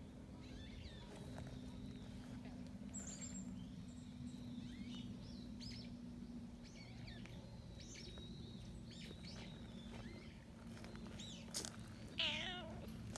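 Black cat giving one short wavering meow near the end, over faint high chirps scattered throughout.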